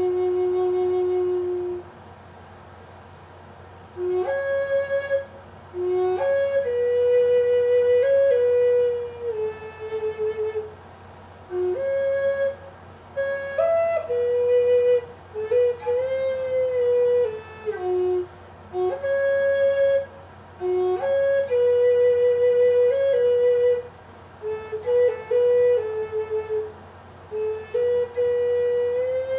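A flute playing a solo melody of held notes, in phrases broken by short pauses.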